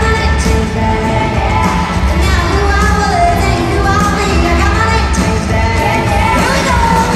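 Live country band with a lead singing voice, played loud over an arena's sound system and heard from the stands.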